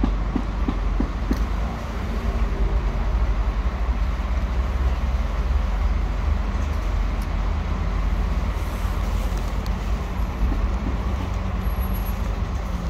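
Steady low rumble of street traffic. During the first second or so, a cat crunches dry kibble in short repeated bites.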